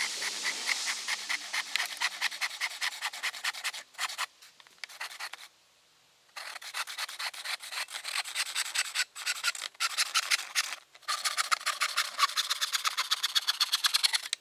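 Handsaw cutting wood with fast, even back-and-forth strokes, in three runs with short pauses between them.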